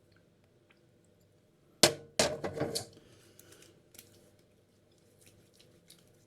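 Hands slapping splash aftershave onto a freshly shaved face: one sharp slap, then a quick run of pats, followed by a few faint clicks.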